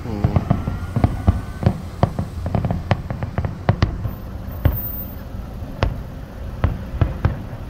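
Fireworks going off: an irregular string of sharp bangs and pops, some in quick clusters, with the biggest reports about a second in and near the middle.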